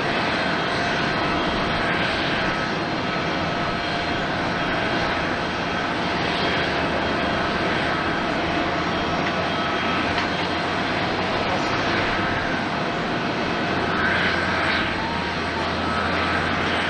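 An ANA Boeing 777-300ER's GE90 turbofan jet engines running steadily: a continuous jet noise with a faint steady whine, and a low hum that grows stronger in the second half.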